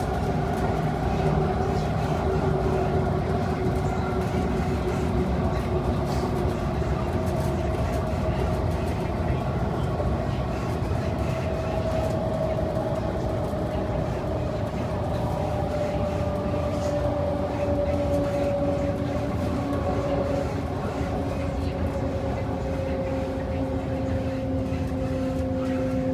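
Electric multiple unit's AEG GEATrac GTO-VVVF traction inverter and AEG BASu traction motors at speed. Several whining tones drift slowly lower in pitch over a steady rail rumble.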